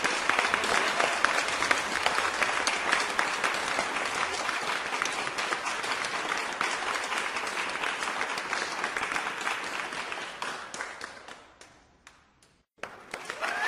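Crowd applauding, a dense patter of many hands clapping. It fades away about eleven seconds in, cuts out for a moment, and starts again just before the end.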